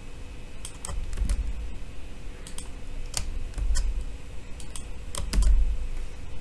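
Typing on a computer keyboard: irregular key clicks, with low thumps now and then.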